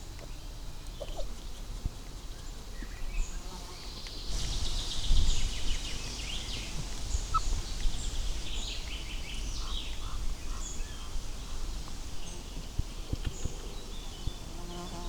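Small birds chirping and calling over a steady outdoor background, with a louder stretch of rushing noise about four seconds in.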